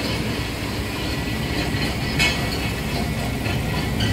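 Scania R450 truck's diesel engine idling steadily, heard from inside the cab, with a short click about two seconds in.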